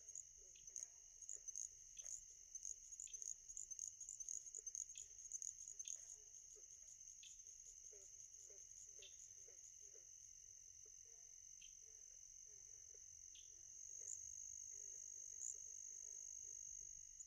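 Faint insect chorus of crickets: a steady high-pitched drone with quick faint chirps over it. The drone grows a little louder near the end.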